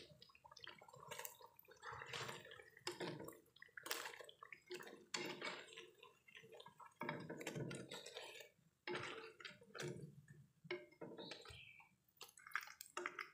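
Hot cooking oil in a wok crackling and spitting irregularly as battered banana fritters are lifted out with a wire strainer, oil dripping back into the pan, with light clinks of metal utensils against the wok.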